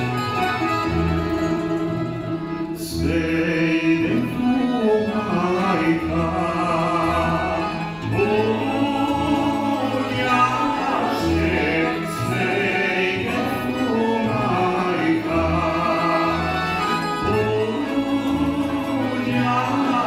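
A male singer sings a Bosnian sevdah song in long, held phrases, backed live by accordions and a tamburica band with a bass pulsing on a steady beat. The voice comes in about three seconds in, after a short instrumental passage.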